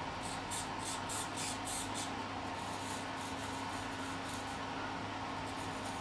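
Small hobby servo motors whirring in many quick short spurts as they follow the moving joystick, over a steady low hum.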